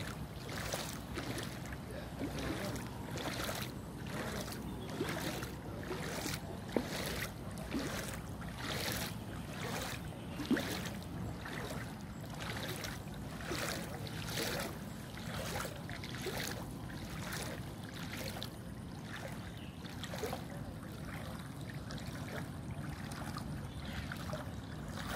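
Rhythmic splashing of muddy floodwater, about two splashes a second, as someone moves through it, over a steady low rumble.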